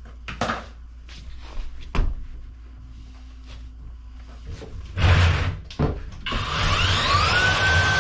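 Knocking and clattering of tools and drain parts, with a loud rattle about five seconds in; then a Kobalt power drain auger's motor starts about six seconds in, its whine rising and then holding steady.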